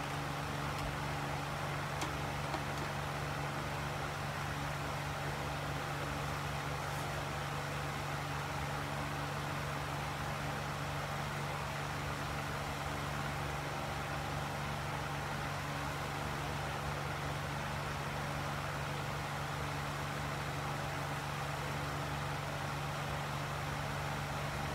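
Steady machine hum with a fan-like whir, unchanging throughout, with a faint click about two seconds in.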